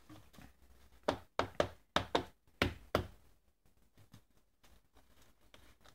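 A quick run of about seven sharp knocks over two seconds, from hands tapping a small paper-wrapped firework shell part against the workbench during assembly.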